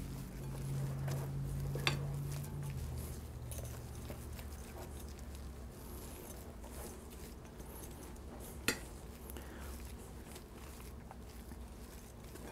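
Silicone spatula stirring and folding mashed potatoes in a glass bowl: soft, faint scraping and squishing, with two sharp clicks of the spatula knocking the bowl, about two seconds in and again later. A low hum runs under the first few seconds.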